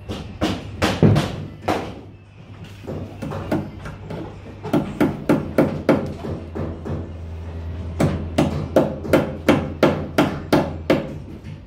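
Hammer striking cable staples into a wooden stud to fasten low-voltage cable: groups of sharp knocks, the later ones in quick regular runs of about three to four strikes a second, with short pauses between.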